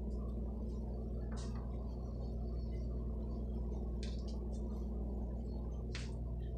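Pieces of seafood boil (crab legs, corn, shrimp) set by hand onto a plastic plate, making a few short, soft clicks and rustles, about a second and a half in, around four seconds and around six seconds. Under them runs a steady low hum.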